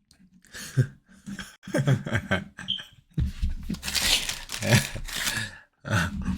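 Unintelligible voices picked up by a doorbell camera's microphone, rough and distorted, with a stretch of harsh noise and low rumble from about three seconds in.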